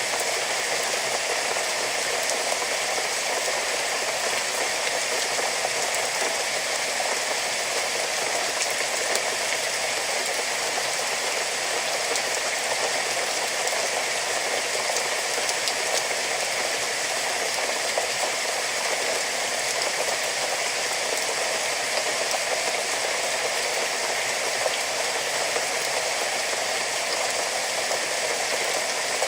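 Steady rain falling, an even hiss with the odd sharper drop tick.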